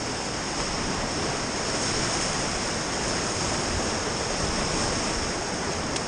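Whitewater river rapids rushing steadily around a raft.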